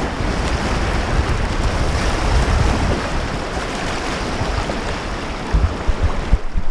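River whitewater rushing steadily, with wind buffeting the microphone in low rumbles that grow stronger near the end.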